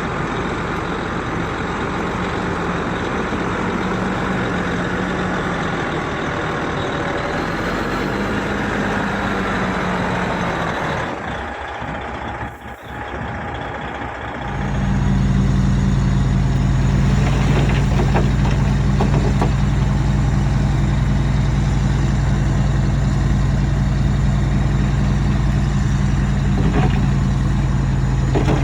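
Heavy diesel earth-moving machinery running, its engine note wavering. About eleven seconds in the sound briefly drops away, and from about fourteen seconds a louder, steady engine drone takes over.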